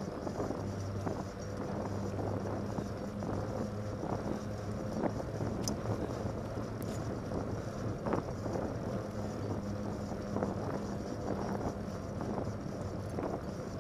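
Fat-tyre bike rolling on wet pavement: a steady low hum from the tyres under a constant wash of road and wind noise on the microphone, with a few sharp clicks and rattles scattered through.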